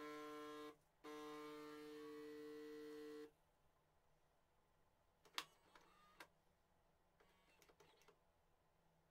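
Philips 5400 superautomatic coffee machine's pump buzzing with a steady pitch, in two runs: a short one, then about two seconds more after a brief break. A few sharp clicks from the machine follow. The footage is sped up.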